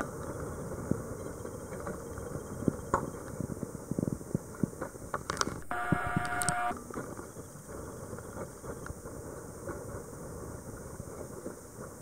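Small boat at sea: a steady engine-like rumble mixed with wind on the microphone, with irregular knocks and rattles throughout. About six seconds in, a steady hum with several pitches sounds for about a second.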